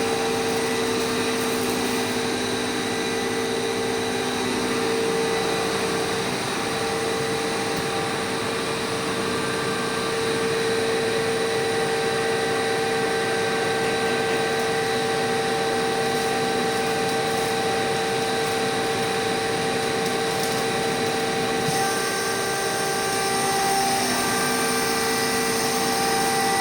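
Compressor running steadily: a continuous motor hum with a high whine over it. Its tone changes slightly about six seconds in and again near twenty-two seconds.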